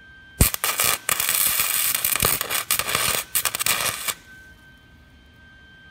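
Wire-feed welder arc crackling and spitting for about three and a half seconds, then cutting off, as a nut is tack-welded onto a broken exhaust manifold stud.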